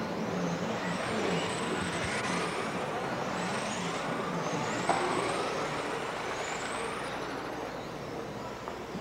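Electric 1/12-scale on-road RC race cars speeding past, their motors giving high-pitched whines that glide up and down as the cars accelerate and brake, over a steady rushing noise.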